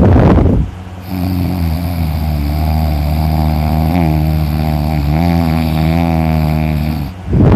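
A person snoring loudly. There is a short, harsh rattling snore at the start, then a long, steady, droning breath with a low hum for about six seconds, and another harsh rattling snore near the end.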